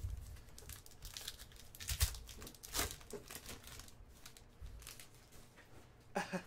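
Plastic trading-card pack wrapper crinkling and tearing in a series of short rustles as it is pulled off the cards by hand.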